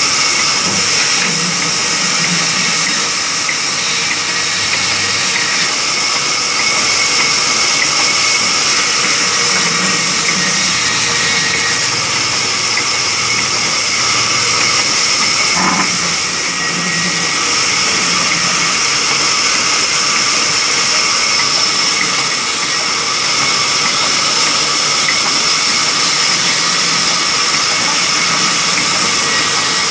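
Belt-driven vertical band saw running steadily while ripping a wooden plank, a loud continuous mechanical noise with a high-pitched whine. A brief knock about halfway through.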